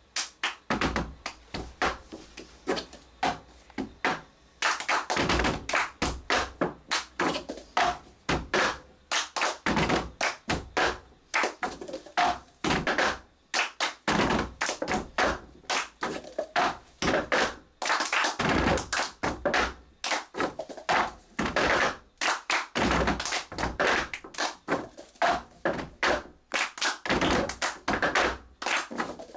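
Plastic cups knocked and slammed on a tabletop by a group of hands, mixed with hand taps and claps, in a quick rhythmic cup-game pattern.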